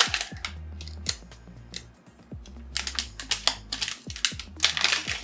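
Zip seal of a resealable anti-static plastic bag being pulled open by hand: a run of sharp little clicks and crinkles, a few at first, then a quick dense string in the last couple of seconds.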